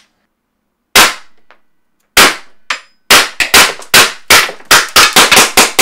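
Tiberius T8.1 CO2 paintball gun, tuned to maximum power, firing breaker balls. Two single sharp shots about a second apart, then a rapid string of shots at about three to four a second from about three seconds in.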